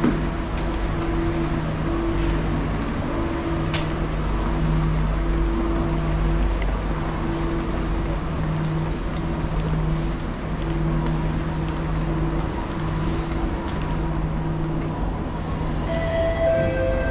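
Singapore MRT train running, a steady loud rumble with a low hum that keeps cutting in and out. Near the end a short two-note chime steps down in pitch.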